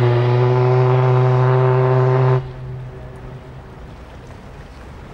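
Paddle steamer Waverley's whistle sounding one long, deep, steady blast that cuts off sharply about two and a half seconds in, leaving a brief echo over wind and water noise.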